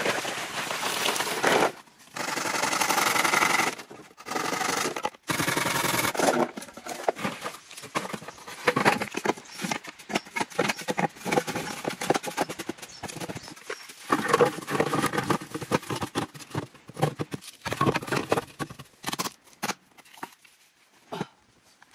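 Rapid, irregular knocks and scrapes. They come in loud spells over the first six seconds, then turn into a fast run of clicks that thins out near the end.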